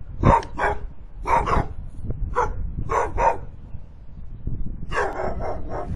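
A dog barking: sharp barks in ones and twos, then a quick run of about five barks near the end.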